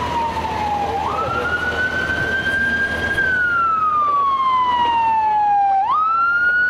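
Pierce fire engine's siren sounding a slow wail: the tone sinks slowly, jumps quickly back up about a second in, climbs and sinks again, then jumps up once more near the end, over the noise of street traffic. It grows a little louder as the engine approaches.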